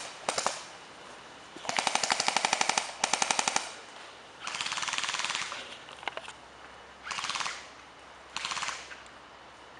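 Airsoft guns firing: a few single cracks at the start, then two rapid full-auto bursts of sharp, evenly spaced shots about two seconds in. Three shorter hissing bursts follow later.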